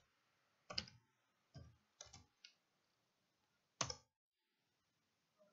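Computer keyboard being typed on: about six separate key clicks spread over several seconds with near silence between them, the one about four seconds in the loudest.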